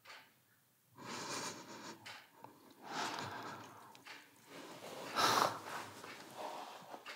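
A person breathing hard and sniffing: a few long, noisy breaths, the loudest about five seconds in.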